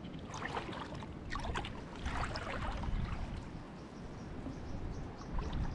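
Shallow seawater sloshing and splashing in irregular bursts as someone wades through it, over a steady low rumble.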